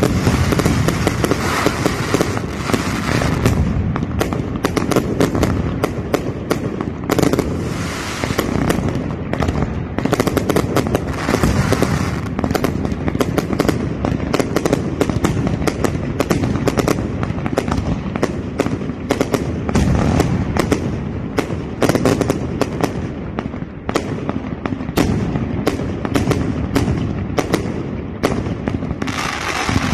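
Consumer aerial fireworks firing in a rapid, continuous barrage of bangs and crackling bursts overhead.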